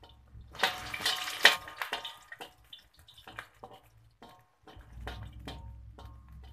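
Garlic cloves sizzling and crackling in hot oil in a wok while a metal spatula stirs them, with a louder rush of sizzle and scraping for about a second near the start. A low steady hum runs underneath.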